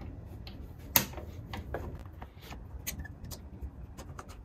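Scattered small clicks and knocks of parts and tools being handled during a repair, the sharpest about a second in, over a low steady hum.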